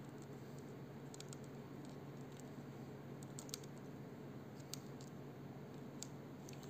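Faint, scattered small clicks and rustles of fingers twisting and pulling nylon fishing line, over a steady low hum.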